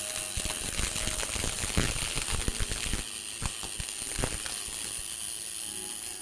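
MIG welding arc on aluminium sheet with AlMg5 filler wire, fed by an EWM Picomig 180 Puls welder: a steady, dense crackle with a thin high whine above it.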